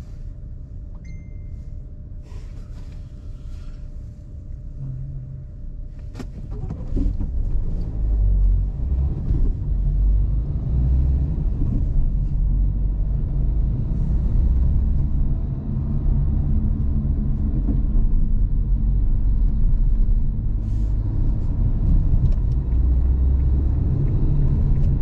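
Inside a car's cabin: the car waits with a low steady engine hum, then about six or seven seconds in pulls away, and the engine and road rumble grows much louder and holds steady as it drives.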